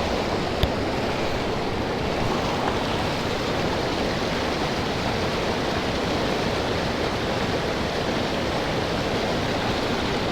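Creek water rushing and splashing steadily, with one sharp click about half a second in.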